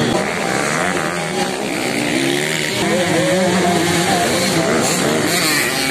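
Engines of several small dirt bikes running on a dirt track, overlapping and rising and falling in pitch as the riders open and close the throttle.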